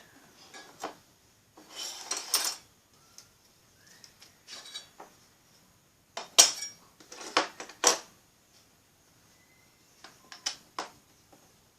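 Small hard objects, likely metal, clinking and clattering as they are handled, in irregular bursts of sharp clicks and knocks. The loudest knocks come about six to eight seconds in.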